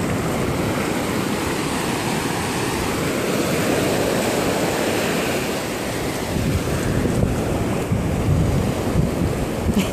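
Shallow surf washing in over the sand, with wind rumbling on the microphone, gustier in the second half.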